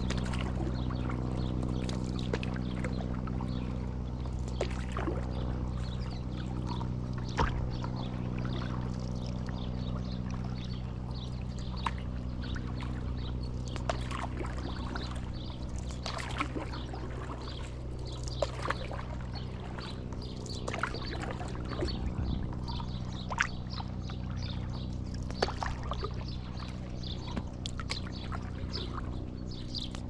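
Stand-up paddle board paddle working calm river water: irregular small splashes and drips as the blade dips and lifts. Under them runs a steady low hum.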